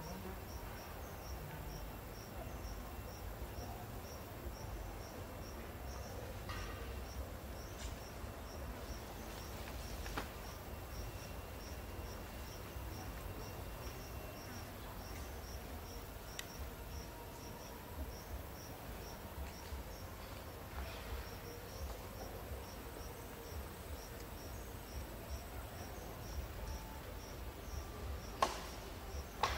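Insects chirping steadily, a high pulse about twice a second, over a low rumble, with a couple of sharp clicks near the end.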